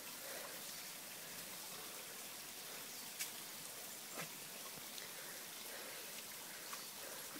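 Steady hiss of running water, with a few faint clicks or small splashes.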